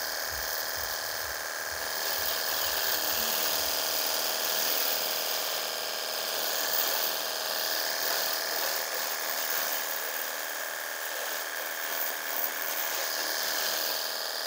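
Cordless battery-powered pressure washer running steadily: the whine of its small electric pump motor over the hiss of the point-nozzle jet spraying a car's wheel arch. The spray pressure is low for a pressure washer.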